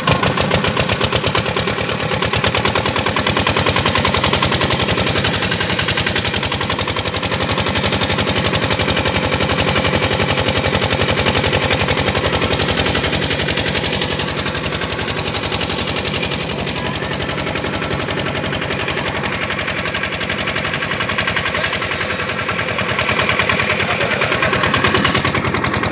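Motor boat's engine running steadily at close range, its firing strokes making a rapid, even knocking beat.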